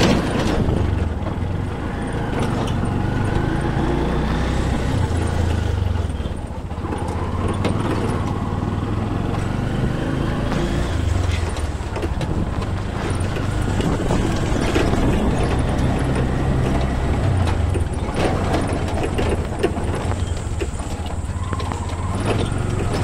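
Auto rickshaw on the move, heard from inside the cabin: its small engine running with a steady low drone, the body rattling and knocking over the road, with tyre and wind noise.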